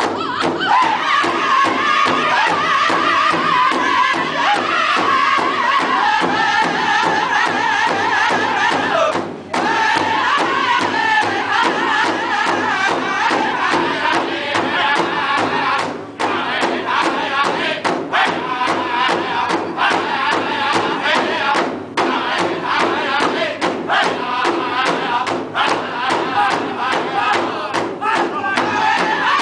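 Powwow drum group: several men strike a large shared hand drum together in a steady beat while singing loudly in high voices. The melody starts high and falls in pitch phrase by phrase, then starts high again.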